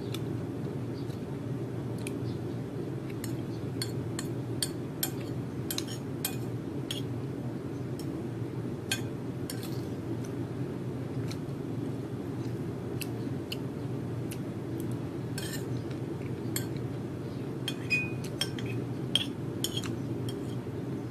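A metal spoon clinking and scraping against a ceramic plate in short, irregular taps while someone eats, over a steady low hum.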